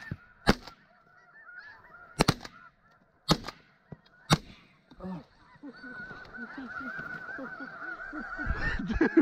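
Shotguns firing at passing snow geese: five sharp blasts in the first four and a half seconds, two of them almost together. Snow goose calls go on underneath, swelling into a dense, high yelping chorus that grows louder from about halfway.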